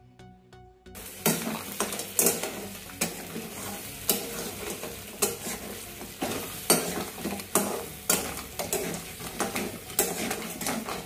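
Flat metal spatula scraping and stirring crab pieces frying in oil and masala in a metal kadhai, with sizzling. The scraping strokes start about a second in and repeat every half second to a second.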